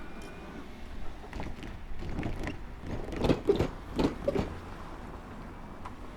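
Wheels knocking over the rails at a level crossing. A run of clacks builds, peaks in two close pairs of loud knocks about three and four seconds in, then dies away.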